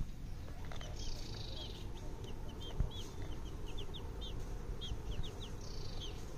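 Baby chicks peeping: many short, high chirps in quick succession, over low background noise.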